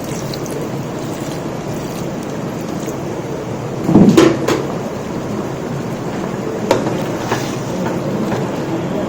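Chicken masala cooking in a large biryani pot on a high gas flame, a steady frying hiss. A loud metal clatter of utensil against the pot comes about four seconds in, with a single sharp knock near seven seconds.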